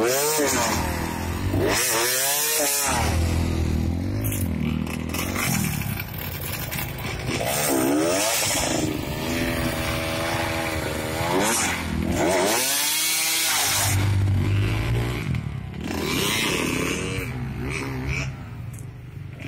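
KTM two-stroke dirt bike engine revving up and down over and over under hard load as it climbs a steep, muddy slope, dropping off briefly a couple of times.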